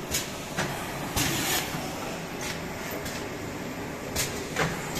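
Fully automatic dry offset printing machine for plastic paint pails running: a steady mechanical rumble broken by short sharp hisses about every half second to a second.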